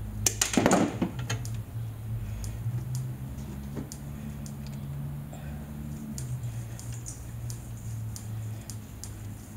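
Handling of the bare copper ground wires and a pair of wire strippers: small scattered clicks and ticks as the wires are bent and twisted together, with a louder clatter about half a second in. A steady low hum runs underneath.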